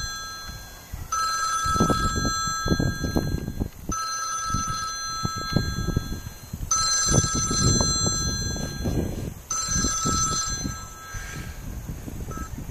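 A phone ringing near the microphone: an electronic ringtone that sounds in four rings of about two and a half seconds each, separated by brief gaps, over a low rumble.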